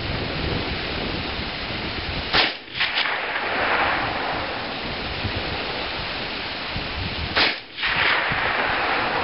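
Two shots from a suppressed Dragunov Tigr semi-automatic rifle in 7.62x54R, about five seconds apart, each a sharp report followed by a short noisy tail.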